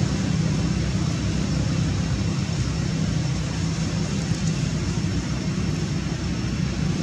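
A steady low rumble under a constant hiss, with no distinct calls or knocks standing out.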